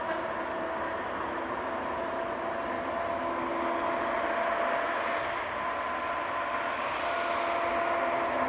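Hot saw (feller buncher with a disc saw head) running: a steady heavy-machine drone with a faint whine that comes and goes.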